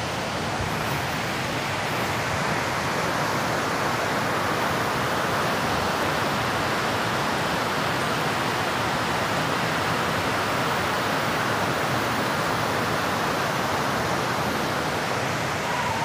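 Steady rushing of a river and its waterfall, an even, unbroken noise of flowing water.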